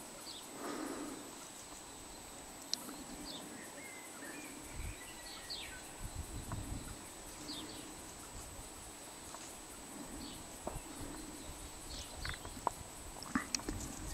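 Quiet outdoor ambience with scattered short high chirps and occasional sharp clicks and rustles, a few louder clicks near the end.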